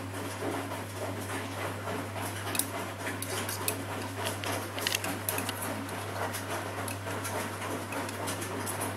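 Ardo A 500L front-loading washing machine tumbling its drum during the wash phase of a 60° cotton cycle: a steady hum with laundry and soapy water sloshing, and scattered small clicks and knocks against the drum.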